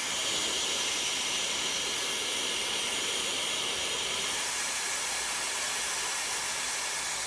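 Handheld hair dryer running steadily, a constant airy hiss, blowing warm air onto a smartwatch display to loosen it before prying.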